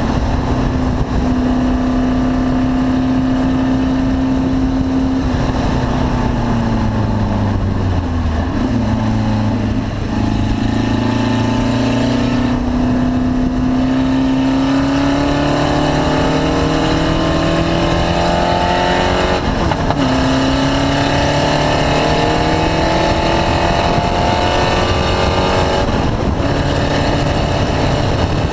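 Race car engine under way on track: it holds a steady speed, eases off, then revs rise for about ten seconds, drop suddenly at a gear change about twenty seconds in, and climb again.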